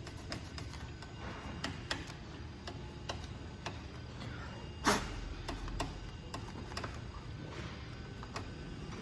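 Scattered light clicks and taps from hands working on a circuit board on a workbench, with one sharper knock about five seconds in, over a low steady hum.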